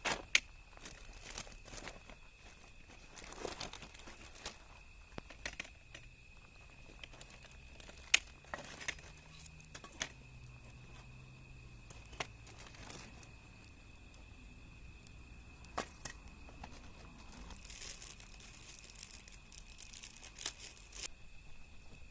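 Wood fire crackling, with sharp pops and snaps at irregular intervals, the loudest about eight seconds in. A faint steady high tone sits underneath.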